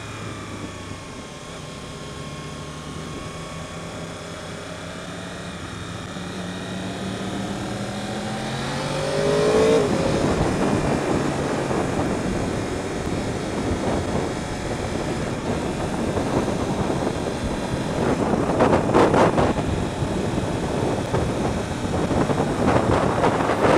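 Yamaha YZF-R1 crossplane inline-four engine pulling with steadily rising revs for about ten seconds, heard from the rider's helmet. Then loud wind rush over the microphone takes over at speed, with gusts near the end.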